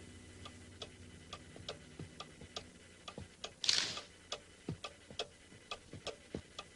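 Faint, even ticking like a clock, about three ticks a second, with a brief hiss about three and a half seconds in.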